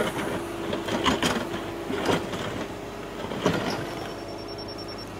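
Excavator running steadily while digging a trench, with a few sharp metal clanks about one, two and three and a half seconds in.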